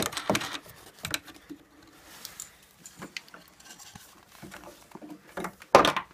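Scattered clicks, knocks and rustling from hands working on a wooden keyboard stand and its knob-bolt fittings, with one louder knock near the end.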